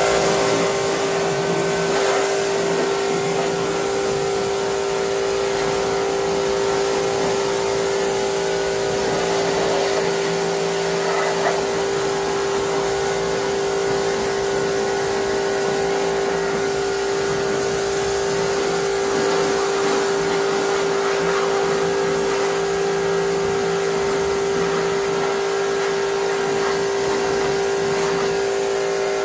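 Pressure washer running steadily, a constant hum under the hiss of its water jet as it rinses foam off a motorcycle.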